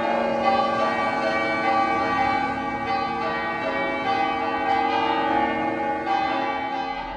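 Several church bells of Santa Maria Maggiore ringing together in a continuous, overlapping peal.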